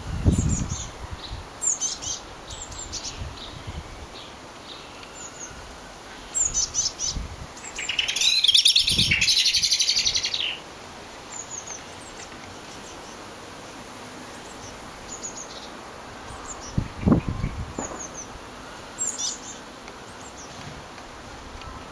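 Blue tits at a nest box calling: short, high chirps scattered throughout, with a loud burst of rapid chattering calls lasting a couple of seconds near the middle. Wind gusts rumble on the microphone a few times.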